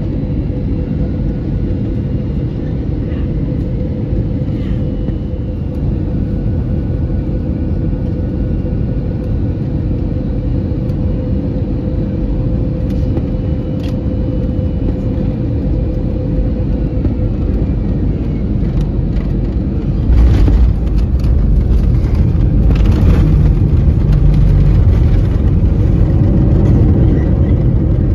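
Airbus A320 cabin noise on final approach: a steady drone of engines and airflow with a steady hum. About 20 seconds in, the wheels touch down with a sudden jump in loudness, and a heavy low rumble follows as the airliner rolls out along the runway, growing louder again a few seconds later.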